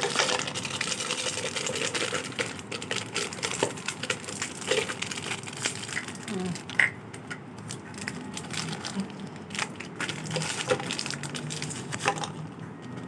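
Plastic Oreo cookie packets crinkling as they are torn open, with light clicks and taps of cookies dropped into a container.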